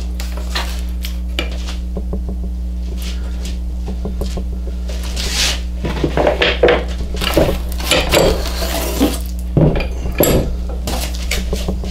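Black-iron pipe clamps clanking and knocking as they are handled and shifted on the bench, with cardboard rustling as it is slid out from under them. The clatter is scattered at first and thickens in the second half. A steady low hum runs underneath.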